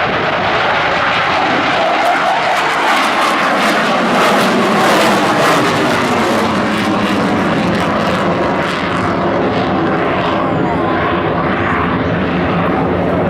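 Boeing F/A-18E/F Super Hornet's twin GE F414 turbofan jet engines running loud, with a pitch that falls over a few seconds and a crackle through the middle.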